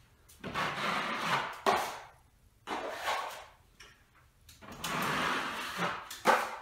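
A 14-inch drywall taping knife dragged across a bumpy painted popcorn ceiling, spreading all-purpose joint compound in three long scraping strokes with short pauses between.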